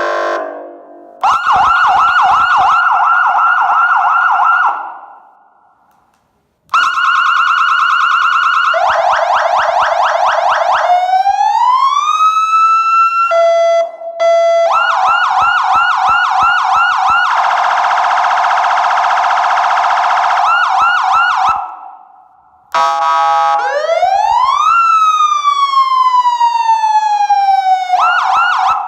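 A 400W electronic motorcycle siren and horn cycling through its tones. It gives a fast warbling yelp several times, steady horn-like blasts, and a slow wail that rises over a couple of seconds and then falls, with short breaks between the tones.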